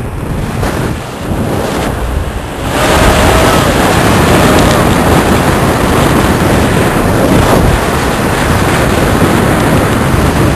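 Loud wind buffeting the microphone over rushing water, growing sharply louder about three seconds in.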